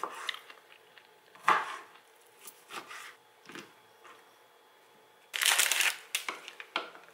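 Green pomelo being peeled and cut on a plastic cutting board: soft tearing of pith and membrane, knife taps and fruit pieces set down, in short scattered bursts. About five seconds in, a louder rustle lasting about a second.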